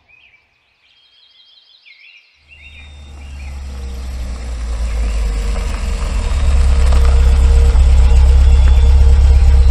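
Suzuki Jimny SUV driving up and drawing near, its engine a low rumble that sets in about two and a half seconds in, grows louder over the next few seconds and then holds steady and loud. Before it, only faint high chirps.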